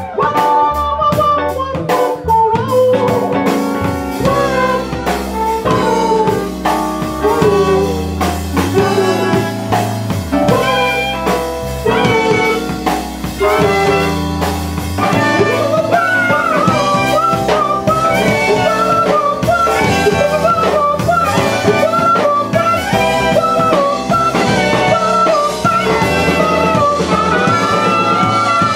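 Live band playing a groove on drum kit and keyboard, with a wandering lead melody line over a steady beat.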